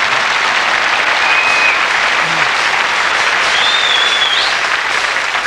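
Studio audience applauding steadily, with two brief high whistles among the clapping.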